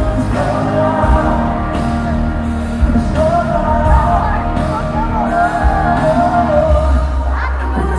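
Live pop concert music recorded from the audience: the band plays sustained chords over a steady low bass, with a singer's drawn-out, wavering vocal line through the middle.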